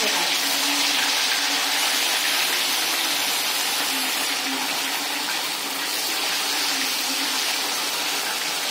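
Marinated chicken pieces sizzling steadily as they deep-fry in hot oil in a kadhai.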